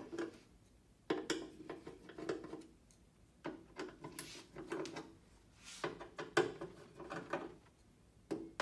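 Screwdriver scraping and prying at an LED backlight strip on a TV's metal backplate, in bursts of rapid scratchy clicks about every two seconds.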